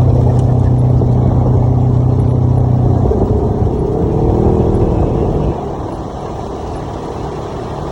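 Side-by-side utility vehicle's engine running while driving. Its tone shifts about three seconds in, and it gets quieter a couple of seconds later.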